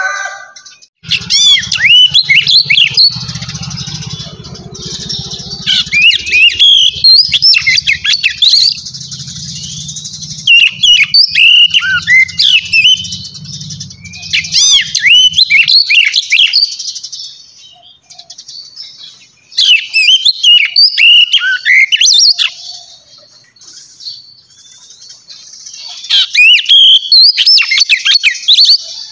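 Birds chirping loudly in bursts of quick, high chirps, each two or three seconds long and coming every few seconds. A low hum runs beneath the first half and stops about halfway through.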